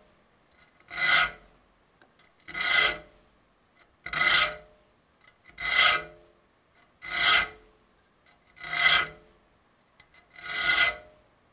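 Triangular saw file rasping across the fine steel teeth of a hand saw, seven slow, even strokes about a second and a half apart, each with a faint ringing note from the blade. It is sharpening the teeth, filing each one down until its shiny flat tip is gone.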